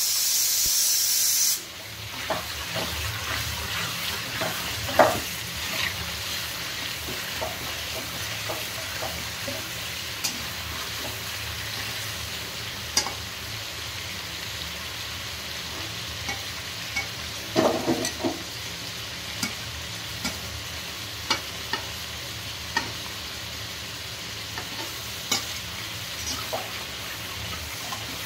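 Chicken pieces frying in oil in a pan, with a steady sizzle, while a slotted spatula scrapes and knocks against the pan as they are stirred. A loud high hiss at the start cuts off suddenly about a second and a half in.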